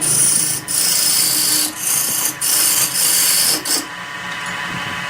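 Turning tool or abrasive pressed against wood spinning on a wood lathe: a loud scraping hiss in four or five passes with short breaks, stopping a little before four seconds in, leaving the lathe's motor humming.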